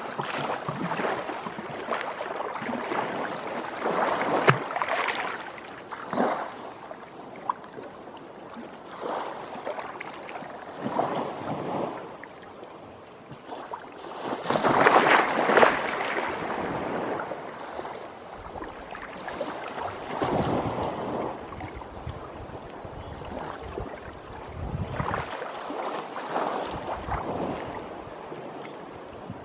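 Small waves of a calm sea lapping at a sandy shore, coming in uneven swells of washing sound, the biggest about halfway through.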